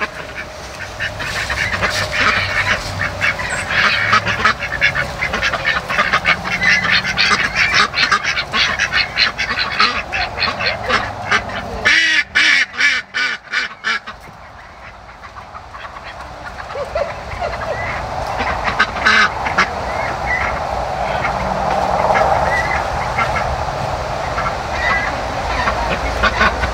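A flock of poultry calling loudly and continuously, with a run of rapid, harsh calls about twelve seconds in. Then comes a quieter stretch, a short burst of calls, and calling that builds again toward the end.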